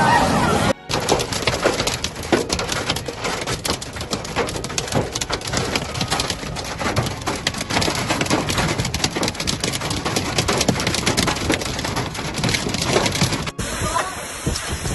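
Heavy storm rain pelting a hard surface in a dense clatter of many small hits. It cuts off suddenly near the end and gives way to a quieter, different stretch of noise.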